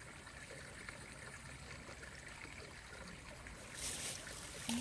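Faint outdoor ambience by a pond: a low, steady hiss with no distinct events, and a brief louder hiss a little before the end.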